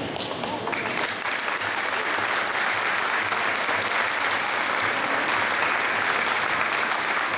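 Audience applauding, starting about a second in and keeping up steadily.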